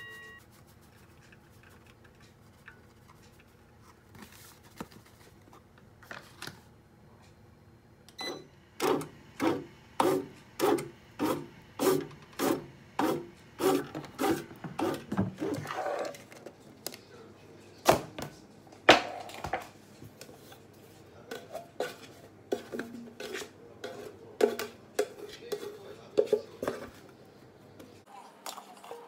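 Bread machine kneading cocoa into bread dough: the paddle slaps the dough around the metal pan in a regular rhythm of about two thumps a second. After a while this gives way to more irregular knocks and rubbing.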